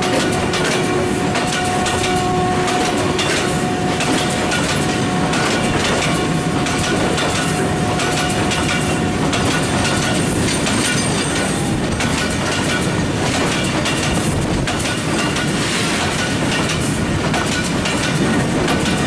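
Freight train of tank wagons passing at speed close by: a loud, steady rumble with the clickety-clack of wheels over the rail joints. A thin steady tone fades out in the first several seconds.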